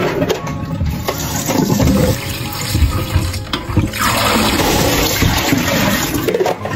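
Tap water running and sloshing in a plastic bowl of soaked sweet potato vermicelli as the noodles are swirled and rinsed, the water splashing out into a stainless steel sink.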